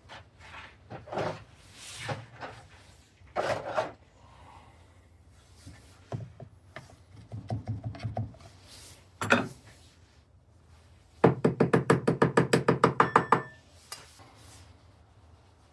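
Hand work on a foundry sand mold: scattered scraping and knocking, then a fast, even run of about fifteen sharp taps lasting a couple of seconds.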